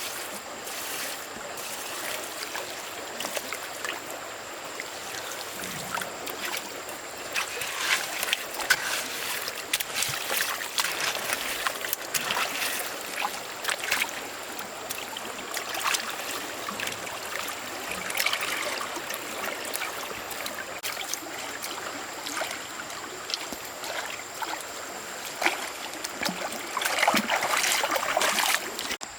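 Water trickling and splashing, with many short, sharp clicks and knocks scattered through it, busier and louder near the end.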